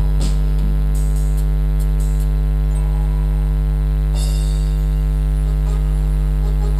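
Loud, steady electrical mains hum from the amplified stage sound system, with a few faint clicks.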